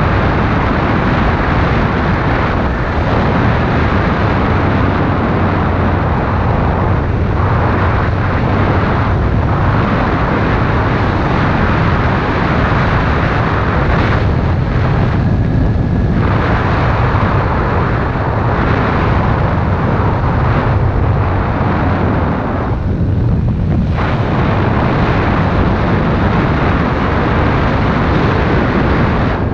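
Kawasaki Ninja sport bike riding at steady low speed, its engine running under heavy wind rush on the camera microphone. The wind noise eases briefly twice.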